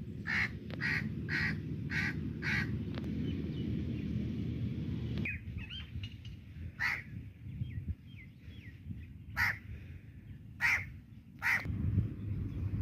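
Bird calls: a run of five harsh calls at about two a second, then four scattered single calls later on, with faint thin chirps from a smaller bird in between, over a low steady rumble.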